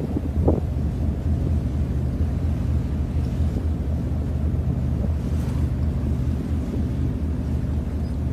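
A ferry's engine running with a steady low drone, with wind on the microphone.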